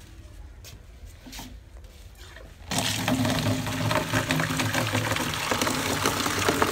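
Tap water pouring into a large plastic tub onto leafy greens, splashing as it fills. It starts suddenly about three seconds in, after a few faint knocks.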